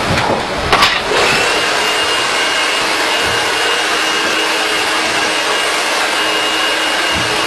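Handheld hair dryer switched on about a second in, after a couple of knocks, then blowing steadily with a faint high whine.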